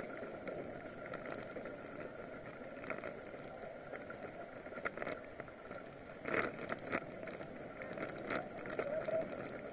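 Bicycle riding on asphalt, heard from a camera on the bike: a steady rushing of tyre and wind noise, with a few sharp clicks and rattles, the loudest about six and a half seconds in.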